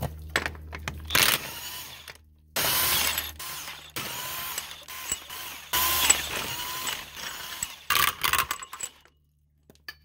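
Cordless impact wrench running loosened 1.5-inch lug nuts off a military truck's front wheel studs, in about five bursts, each from a fraction of a second to about two seconds long.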